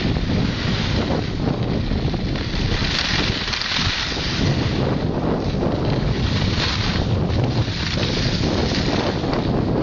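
Steady, loud wind buffeting the microphone while moving down a snowy ski slope, a rushing rumble and hiss throughout.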